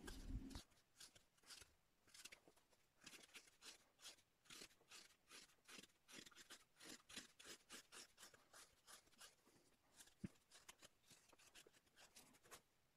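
Faint, quick slicing cuts of a hook knife scooping across the grain in the bowl of a birch spoon, about two strokes a second, with one sharper tick about ten seconds in.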